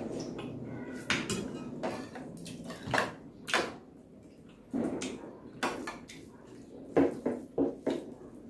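Eating at a table: a metal spoon and fingers clinking against china plates and bowls in a string of sharp clinks, a quick run of four near the end, with close chewing and mouth sounds.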